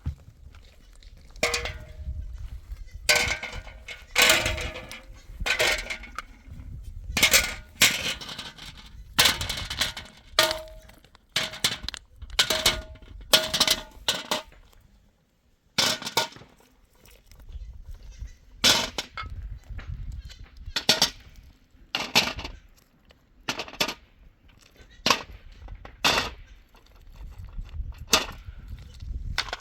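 A series of sharp knocks and clangs, roughly one every second with a short pause midway, some of them leaving a brief ringing tone.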